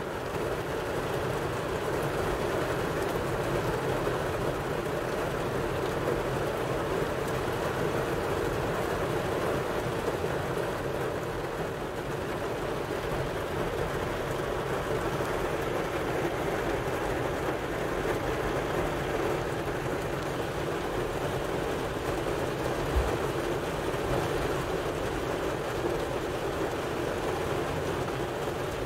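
Heavy thunderstorm rain drumming steadily on a car's roof and windows, heard from inside the car, with a low rumble underneath.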